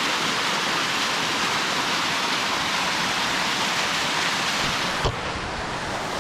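Small waterfall running fast, a steady rush of falling water. About five seconds in there is a brief knock, and the rush turns softer and duller.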